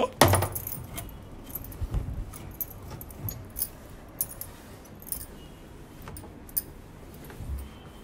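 A cloth rubbing over the plastic lid and rim of a semi-automatic twin-tub washing machine, with many short, light clinks and jingles scattered through it.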